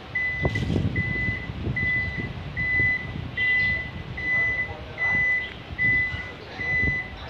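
Toyota Vellfire's powered tailgate closing, its warning buzzer giving a steady single-pitched beep a little more than once a second as the door moves.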